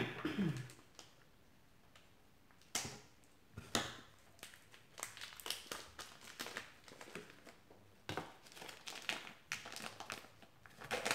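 Plastic candy wrapper crinkling and crackling in irregular bursts as it is worked off a soft tamarind candy, with a couple of sharper crackles a few seconds in.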